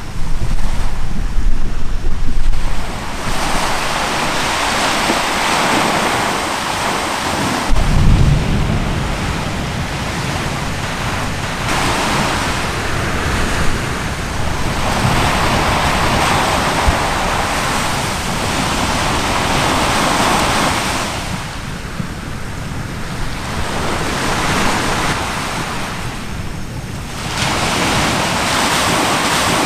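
Sea waves washing ashore, swelling and fading every few seconds, with wind buffeting the microphone. A deep rumble in the first few seconds and a sudden low thump about eight seconds in stand out beneath the surf.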